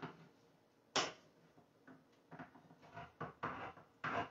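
Hand-held can opener clamping onto and cranking around a small can of baked beans: one sharp click about a second in, then a run of light, irregular clicks and ticks as it works around the rim.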